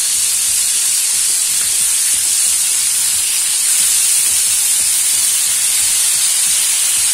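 Fish steaks shallow-frying in oil in a nonstick pan over a medium flame: a steady, loud sizzle.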